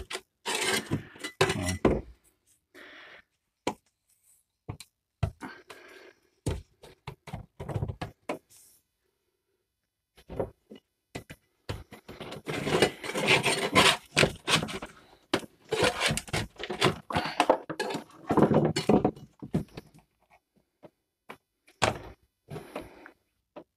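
Old sound deadening being scraped and chipped off the steel floor pan of a Lada 2101, with irregular sharp knocks and thuds. The floor is wet underneath where water has got in between the deadening and the steel. A long stretch of steady scraping runs from about halfway in, after a brief lull.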